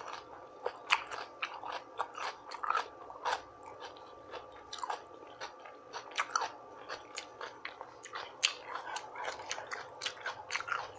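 A person chewing and biting food with the mouth, many irregular wet smacks and small crunches, several a second.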